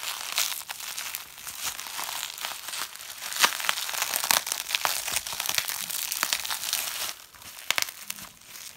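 Plastic bubble wrap crinkling as it is handled and pulled apart, with scattered sharp pops. The loudest pop comes about three and a half seconds in.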